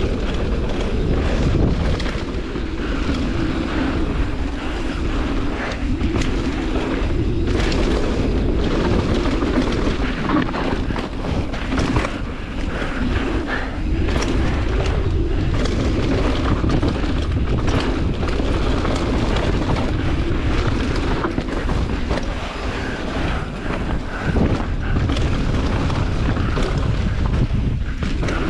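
Wind buffeting the microphone and mountain-bike tyres running over a rough trail, with frequent knocks and rattles from the bike hitting bumps.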